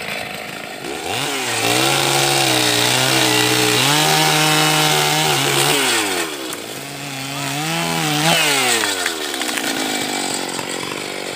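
Two-stroke chainsaw revved to full throttle and cutting through a small tree trunk, held high for several seconds, dipping about six seconds in, then revving again before the engine drops back near the end.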